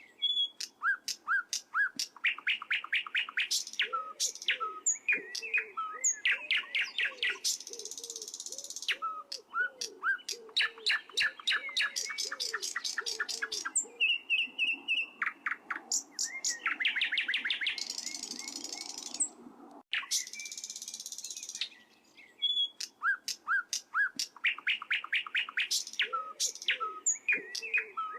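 Birds singing and calling: rapid series of sharp chirps and trills, broken by several buzzy stretches lasting a second or two, over a lower repeated warbling note.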